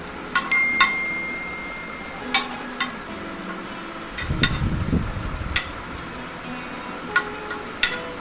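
Onion-tomato masala frying in oil on a black-stone dosa griddle, a steady sizzle, with a spatula scraping and tapping against the stone surface every second or so. A brief low rumble comes about four seconds in.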